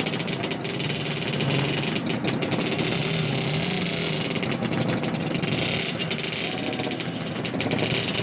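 Several small old two-stroke motorcycles, Yamaha L2-series and the like, running together, idling and being blipped so their pitch rises and falls over a crackling exhaust note.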